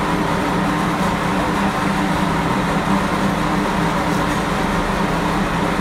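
An engine running steadily, a constant low hum.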